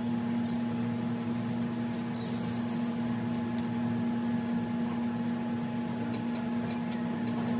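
A steady low mechanical hum, with a few faint ticks near the end.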